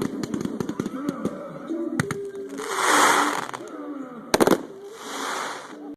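Fireworks going off in a rapid run of small pops and cracks, with a rushing hiss about three seconds in, a loud bang at about four and a half seconds, and another hiss near the end.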